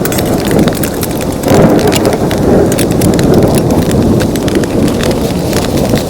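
Heavy rain falling on a tent: a dense, loud, steady hiss with many separate drop hits, swelling briefly about a second and a half in.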